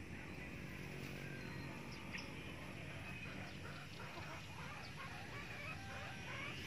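Faint outdoor farmyard ambience with scattered, faint calls of distant fowl, growing more frequent toward the end.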